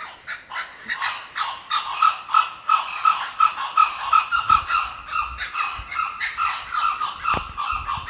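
A kookaburra's laughing call: a long, fast run of repeated notes, about three a second, building up within the first second and carrying on throughout. A single sharp tap sounds late on.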